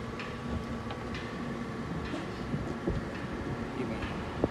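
Yamaha GP1800 fuel system running on test: a steady electric hum with short hissing ticks about once a second as fuel sprays from a leaking injector, the cause of the hard starting.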